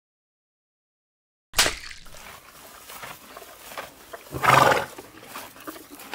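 Cartoon horse sound effects: after about a second and a half of silence, a sudden loud burst, then rough animal vocal noises with a louder call about four and a half seconds in.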